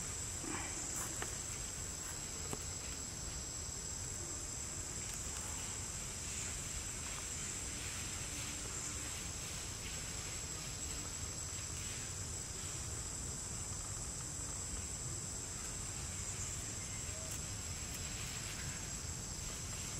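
Insects give a steady, high-pitched drone, unbroken throughout, over a low steady rumble of background noise.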